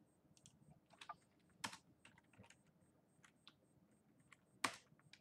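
Faint typing on a computer keyboard: irregular keystrokes, with two louder clacks about three seconds apart.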